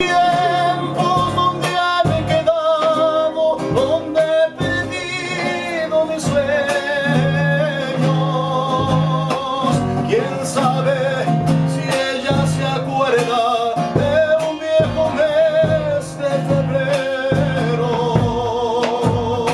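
Background music: a song with a singing voice over strummed guitar, in a Latin American style.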